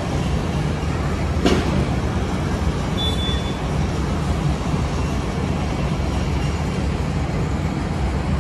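Steady low rumble of vehicles and machinery, with a sharp knock about a second and a half in and a short high beep about three seconds in.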